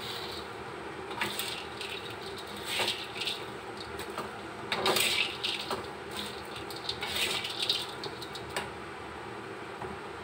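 A metal spatula stirring and tossing crisp shredded fried potato sticks in a wok, with irregular scrapes and dry rattling bursts, the loudest about five seconds in. The sticks are being coated in a sticky sugar and chilli glaze.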